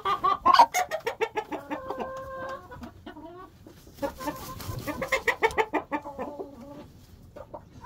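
Chickens clucking: quick runs of short clucks, with a longer drawn-out call about two seconds in.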